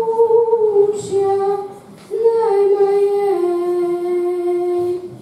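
A young girl's voice singing a slow song in Russian, without accompaniment. She holds one long note that sinks slightly in pitch, takes a short breath about two seconds in, then sings a second long phrase that steps down to a lower held note and fades near the end.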